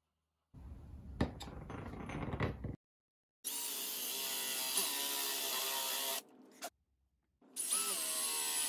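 Cordless drill with a spade bit boring into pine, running twice with a steady whine: once for about three seconds, then again with a quick spin-up about two-thirds of the way in. A quieter scratchy noise with a few clicks comes first.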